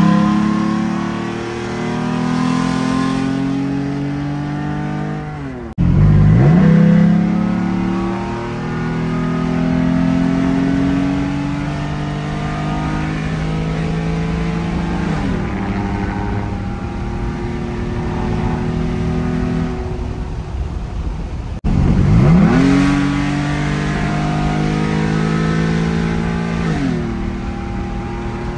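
Ford F-150 pickup engine accelerating hard through the gears. Its pitch sweeps up steeply from low revs, climbs steadily, then drops at each upshift. The run starts over abruptly about six seconds in and again about 22 seconds in.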